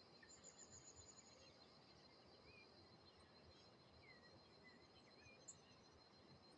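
Faint birdsong: a quick high trill early on, then several short chirps, over a steady high insect drone.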